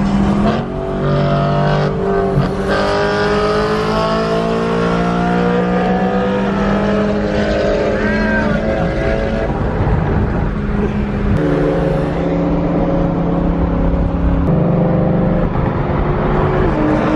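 Car engine pulling under acceleration, heard from inside the cabin over road noise; its pitch climbs over the first few seconds, then holds at speed, with abrupt changes in the note about eleven and fourteen seconds in.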